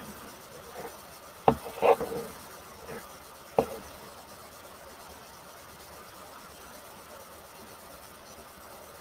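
Two sharp clicks about two seconds apart, with a short rustle between them, as a hair iron is clamped and drawn through long hair close to the microphone. After about four seconds only a faint steady hiss remains.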